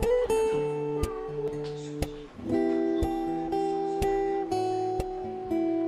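Background music: acoustic guitar with held notes over a steady beat of about two a second.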